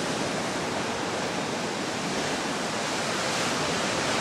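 Heavy surf breaking on a rocky shoreline, a steady rush of churning water without distinct separate crashes.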